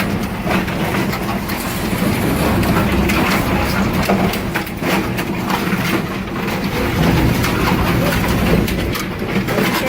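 Recycling machinery running, a double-shaft shredder and washing line: a steady low motor hum with irregular clattering and knocks throughout.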